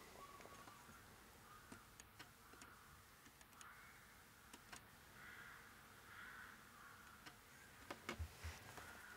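Near silence: faint small clicks and taps of multimeter probes and fingers on the tank mouse's circuit board, with a few louder knocks about eight seconds in. Faint repeated sounds sit in the background.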